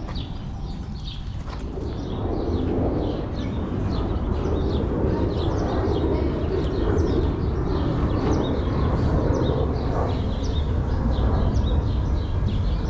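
Small birds chirping rapidly, several short high chirps a second, over a steady low outdoor rumble that swells slightly about two seconds in.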